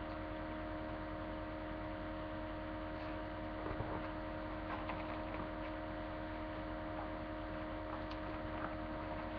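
Steady electrical mains hum and hiss from the recording, with a few faint knocks and rustles.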